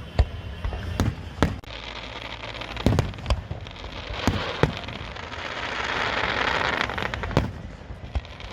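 Aerial fireworks bursting in a string of sharp bangs, about eight over several seconds. Past the middle comes a swelling wash of dense crackle and hiss.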